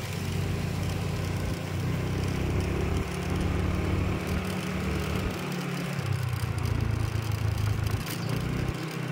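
Vehicle engine and road noise while driving, a steady low hum.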